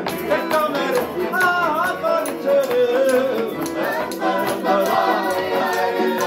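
Small acoustic folk band playing a song: accordion, fiddle and strummed acoustic guitar, with a man singing the melody.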